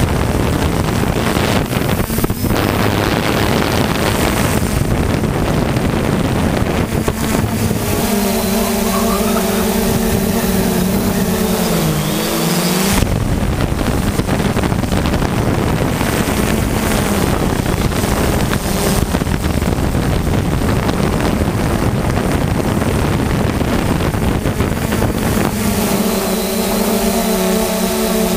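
3DR Solo quadcopter's motors and propellers buzzing steadily close by, mixed with wind rushing over the microphone. Twice a clearer whining hum comes to the fore and shifts in pitch, dropping at the end of the first one, as the motors change speed.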